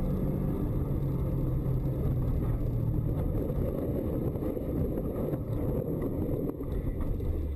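Car engine and tyre noise heard from inside the cabin. The engine note falls slowly as the car slides sideways on the snowy road, and there is a brief dip and a few sharp knocks near the end as it runs into deep snow.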